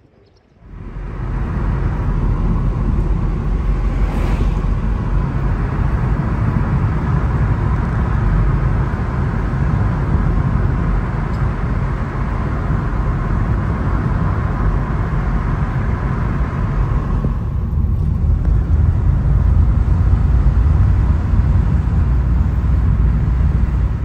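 Car driving along: loud steady road and wind noise, heaviest in the low rumble, cutting in abruptly about a second in.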